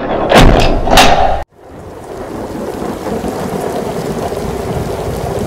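Thunderstorm: two loud thunder cracks in the first second and a half, then the sound cuts off suddenly. Steady rain with a low rumble fades in and runs on.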